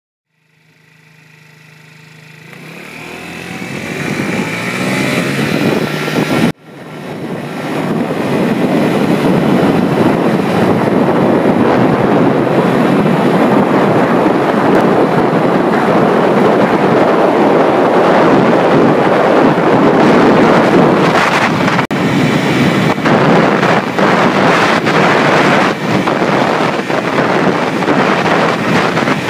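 Romet Router City Line 50 scooter, bored out to 72 cc with an aftermarket variator, accelerating at full throttle; the engine noise is mixed with heavy wind rush on the microphone. The sound fades in at the start and drops out briefly about six seconds in.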